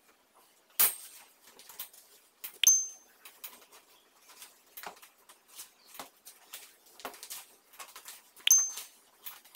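Curtain eyelet rings clinking and scraping on a curtain rod as a curtain is hung and pushed along it, with fabric rustling. A knock about a second in, and two sharp clinks with a brief metallic ring, about three seconds in and near the end.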